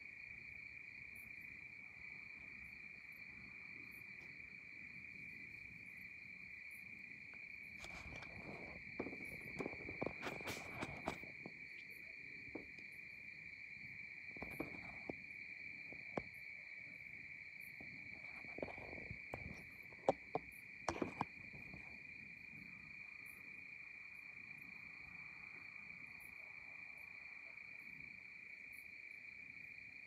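Crickets trilling in one steady, unbroken high-pitched chorus, with faint high ticks repeating above it. Scattered short rustles and clicks break in between about eight and twenty-one seconds in.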